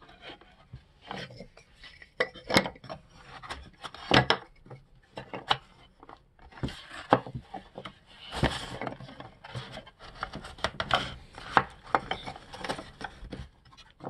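Wooden beehive frame parts knocking and clattering irregularly as they are set and pushed into a wooden frame-assembly jig, with wood scraping on wood between the knocks.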